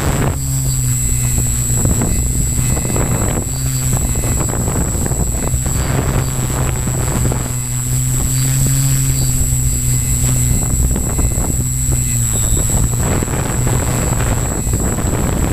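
Zion EX700 multicopter's electric motors and propellers humming steadily in flight, heard from the camera on board, with a thin high whine above the hum. Wind buffets the microphone in gusts.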